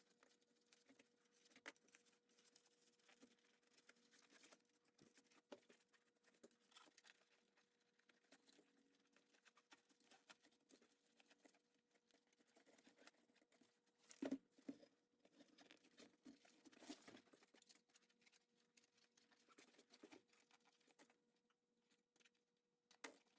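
Near silence with faint scattered clicks and rustles of handling, and a faint steady hum throughout; a few louder knocks come about fourteen seconds in and again around seventeen seconds.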